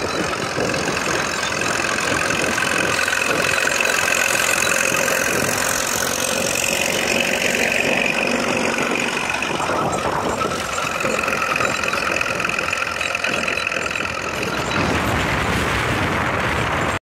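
Caterpillar D4 crawler tractor's diesel engine running as it passes, with steady high-pitched whining tones over the engine note.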